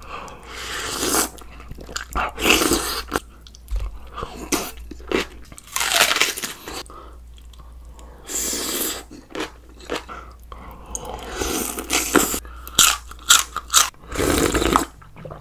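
A person biting into and chewing crunchy raw vegetables close to the microphone, with loud crunches coming again every second or two.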